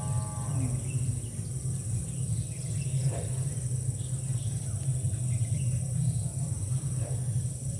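Steady background ambience: a constant low hum with a constant high-pitched drone over it.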